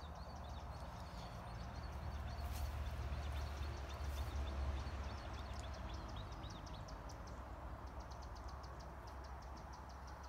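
Lakeside ambience: small birds chirping high and short over a low rumble of wind on the microphone; from about eight seconds in, a fast, even series of high ticks, several a second.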